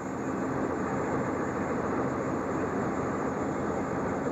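An engine running steadily, a constant hum under a dense, even noise.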